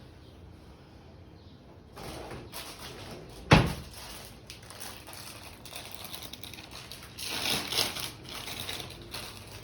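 Rustling and crinkling as rubber cleaning gloves are handled and pulled on, with one sharp knock about three and a half seconds in and another burst of rustling a few seconds later.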